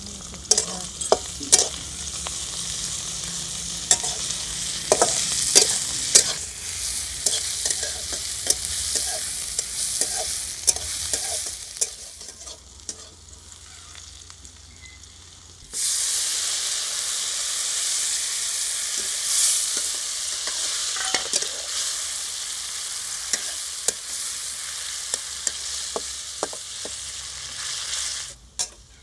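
Onion and spices frying with a steady sizzle in a metal kadai over a wood fire, while a flat spatula stirs them, scraping and knocking against the pan. The sizzle dies down for a few seconds a little before halfway, then comes back loud all at once.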